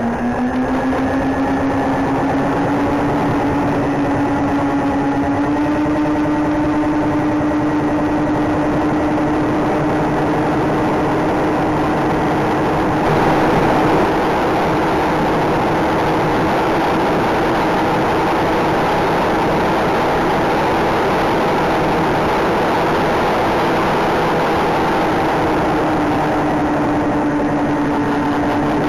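Twin electric motors and propellers of a 1/12-scale Parkzone Mosquito RC plane, heard from its onboard cockpit camera as a steady whine over airflow noise. The whine rises in pitch over the first few seconds as the motors spin up on the take-off run, then holds steady in flight.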